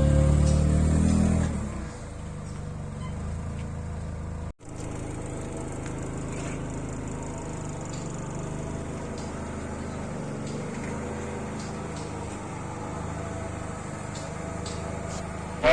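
Music fades out in the first two seconds, leaving a Honda Ciello's engine idling steadily as it warms up. The engine sound drops out for an instant about four and a half seconds in.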